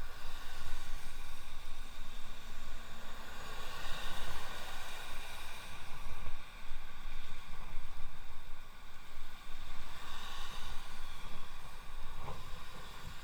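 Wind buffeting the microphone on a moving electric bicycle, a steady rushing noise that rises and falls in gusts.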